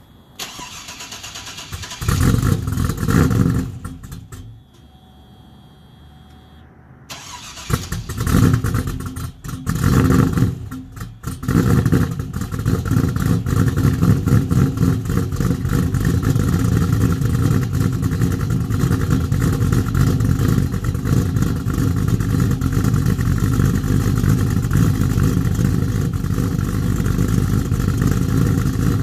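Cammed GMC Yukon Denali 6.0 L V8 with long-tube headers and Carven mufflers, running a 228/228 cam with no tune. It is started, fires with a brief burst of revs, and goes quiet about four seconds in. A second start a few seconds later catches with several revs, then settles into a steady idle through the loud aftermarket exhaust.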